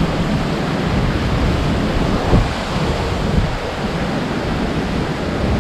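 Strong wind ahead of an approaching hurricane, rushing steadily and buffeting the microphone with a low rumble and a few brief thumps.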